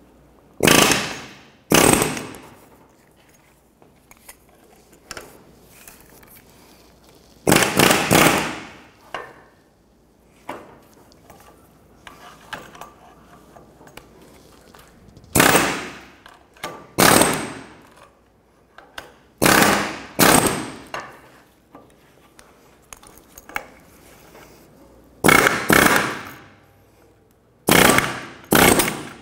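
Pneumatic air chisel hammering in short bursts with pauses between, driving a rust-seized rubber upper control arm bushing off its pivot shaft to break the rust free.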